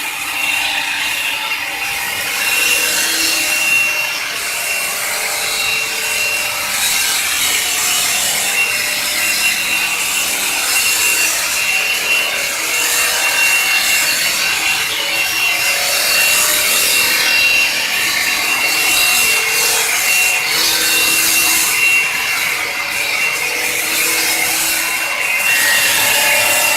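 CNC stone-carving machine at work: the spindle holds a steady high whine while the bit grinds into stone, a continuous rasping noise that swells and eases.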